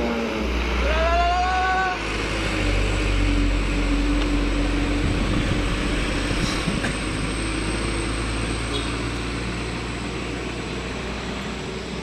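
Box truck's engine passing close and pulling away round the bend, with a short pitched horn note that rises and holds for about a second near the start.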